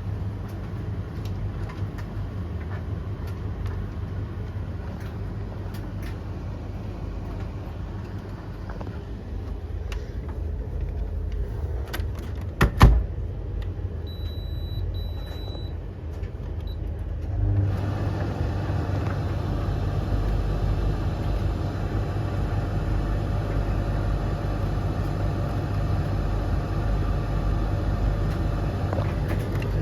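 Blomberg, Russell Hobbs and Hoover tumble dryers running together mid-cycle: a steady low rumble of drums turning and motors humming. A sharp knock comes about 13 seconds in, a few short high beeps follow, and from about 17 seconds the running sound grows louder and fuller.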